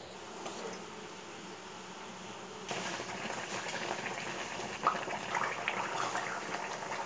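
Tamarind paste bubbling and spluttering as it simmers in a pan. It is faint at first and grows louder about three seconds in, with a stream of small pops.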